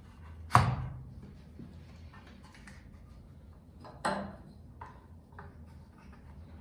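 Two sharp knocks about three and a half seconds apart, wood or tool striking on a workbench, each with a short ringing tail, with light clicks and taps between them.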